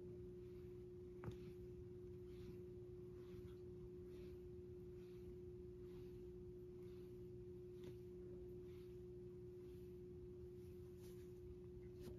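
Near silence: room tone with a faint steady hum at one pitch, and a single faint tick about a second in.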